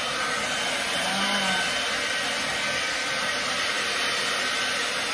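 Handheld hair dryer running on a steady setting, blowing a continuous hiss of air over a wet dog's fur.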